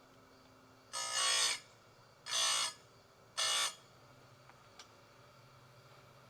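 Oregon 410-120 bench chain grinder's spinning stone grinding saw-chain cutters in three short passes, each a loud buzzing grind of about half a second, followed by two light clicks.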